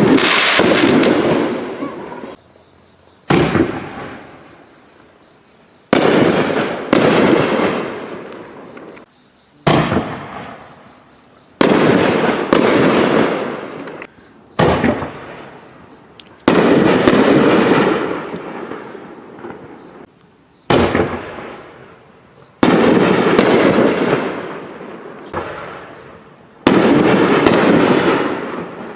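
A 24-shot double-break aerial shell cake firing: sharp reports about every one to two seconds, many coming in close pairs as each shell bursts twice, each followed by a fading rumble and crackle.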